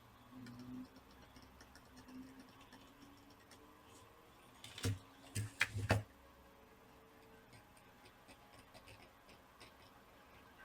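Faint light ticking, with a few sharper knocks about five to six seconds in.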